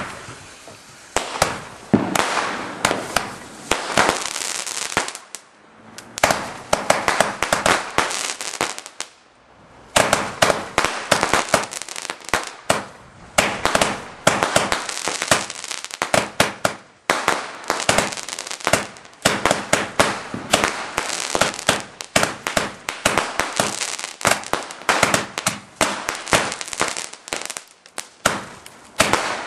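Garden fireworks crackling and popping: a dense run of sharp cracks, several a second, with brief lulls about six and nine seconds in.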